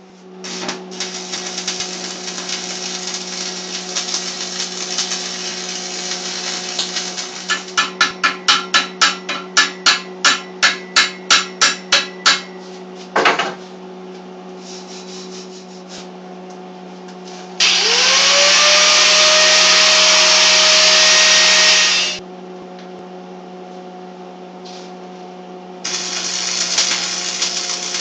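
Metalworking in a workshop. A stretch of steady noisy work gives way to a run of about sixteen hammer blows, roughly three a second, then a single knock. Near the middle a power tool spins up with a rising whine, runs steadily for about four seconds and stops, and noisy work starts again near the end, all over a steady low hum.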